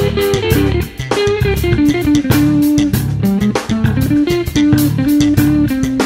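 Background music: guitar-led instrumental with bass guitar and drums, a steady beat under a picked melody.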